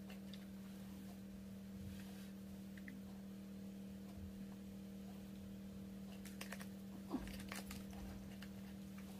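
Quiet room tone with a steady low hum and a few faint clicks and taps, most of them about seven seconds in.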